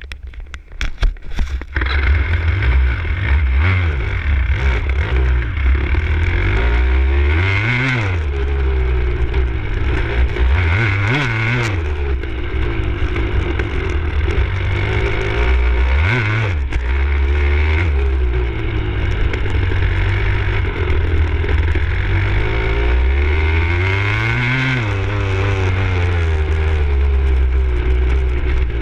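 Enduro dirt bike engine being ridden, revs rising and falling repeatedly as the throttle is opened and closed. A few knocks come in the first couple of seconds, before the engine sound fills in.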